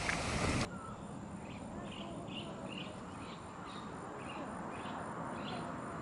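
Wind noise on the microphone, cut off abruptly under a second in; then a quiet evening background with a run of short, high animal chirps repeating about two or three times a second.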